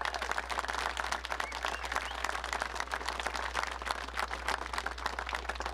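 Crowd applauding, many people clapping steadily.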